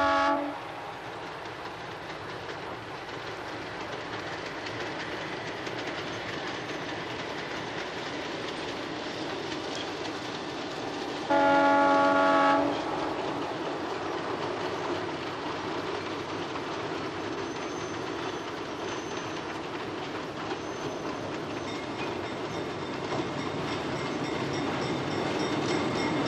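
Diesel locomotive's air horn sounding a chord: a blast that cuts off about half a second in, and a second blast of about a second and a half some eleven seconds in. Between them the train runs steadily on the rails, growing louder near the end.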